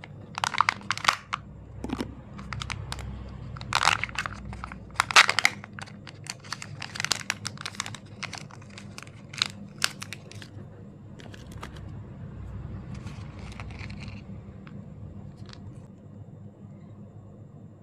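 Surprise egg's plastic-foil wrapper crinkling and tearing as it is opened: a run of sharp crackles that thins out after about ten seconds into softer rustling, over a low steady hum.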